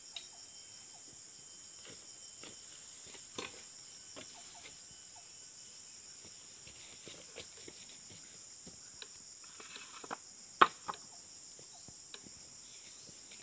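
Steady high-pitched chirring of insects, with scattered clicks and knocks over it and one sharp knock about ten and a half seconds in.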